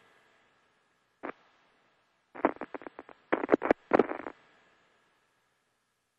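Radio static over a communications channel: a faint hiss with a thin steady tone, one crackle about a second in, then a burst of rapid crackles and pops lasting about two seconds.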